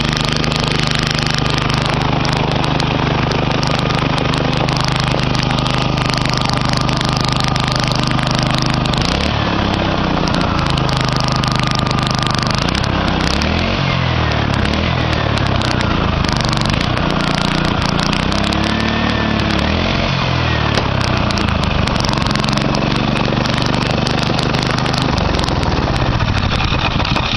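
Honda GC160 single-cylinder four-stroke small engine running, steady at first, then revved up and down over and over from about a third of the way in.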